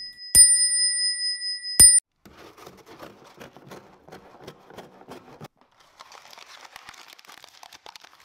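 Crane E-Ne dome bicycle bell struck twice, each strike ringing on with a clear, high, steady tone; the ringing cuts off abruptly after about two seconds. Only faint crackly noise follows.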